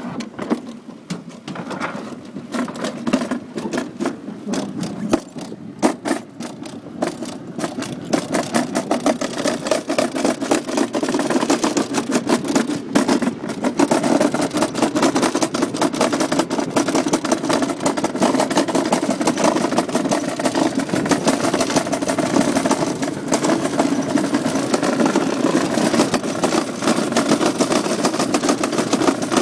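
Summer bobsleigh sled rattling and rumbling down its metal trough track, with dense clicking over a steady rumble. The sound is patchy at first and grows louder and steadier about eight seconds in as the sled gathers speed.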